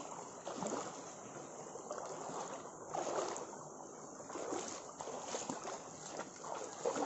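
Shallow creek water running and lapping over rock, with a few steps on wet rock and gravel.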